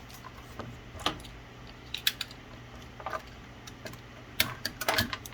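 Tape being wrapped over a spliced Ethernet cable joint: irregular sharp crackles and clicks of tape and cable being handled, in clusters about a second apart.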